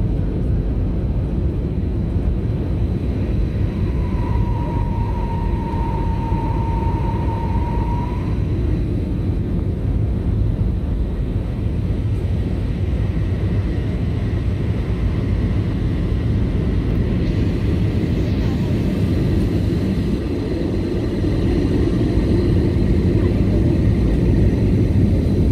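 Steady low rumble of a jet airliner's cabin in flight: engine and airflow noise heard at a window seat, growing a little louder near the end. A thin steady tone sounds for about four seconds early in the rumble.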